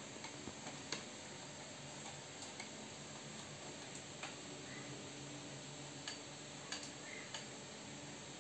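Light, irregular clicks and taps of plastic and metal parts as a ring light's tripod stand and mount are handled and their clamp and knobs worked, about eight clicks over a steady hiss.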